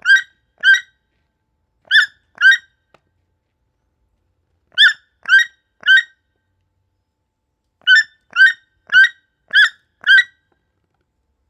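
A toucan screaming: short, loud, harsh yelping calls repeated about twice a second in runs of two to five, with pauses between the runs.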